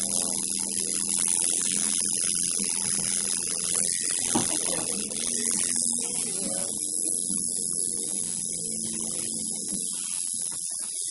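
Electric tattoo machine buzzing steadily while tattooing skin, a continuous electric hum.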